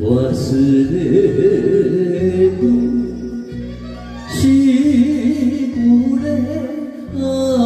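A man sings an enka ballad with wavering vibrato through a microphone over a karaoke backing track. The singing drops out briefly about halfway through, leaving the accompaniment alone, then comes back.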